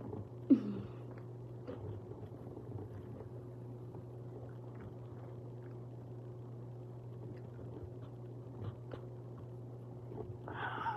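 Someone eating chicken and macaroni and cheese: soft chewing and a few small clicks of a fork on a plate over a steady low hum. A brief loud sound with a falling pitch comes about half a second in.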